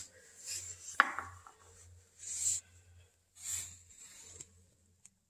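A small stone set down on a painted wooden windowsill, a single sharp click about a second in, followed by a few soft rustling swishes.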